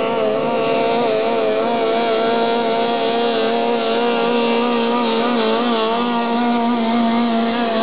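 Racing powerboat's engine running flat out at high revs, a loud, buzzy, steady note whose pitch wavers slightly as the hull skips across the water.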